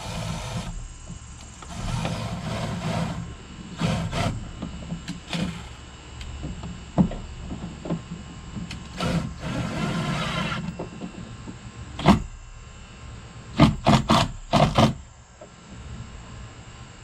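Cordless drill running in short bursts against a canoe's wooden thwart while a rail mount is fitted, with one longer run about ten seconds in that rises in pitch and several quick trigger pulses near the end.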